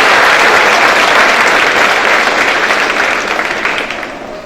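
Audience applauding in a large hall for honor roll recipients, dense clapping that fades out toward the end.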